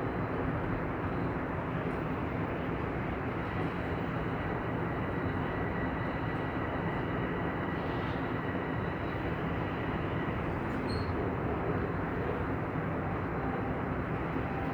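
Steady rumble and hiss of a Toronto Line 1 subway train, with a faint, steady high whine running through it.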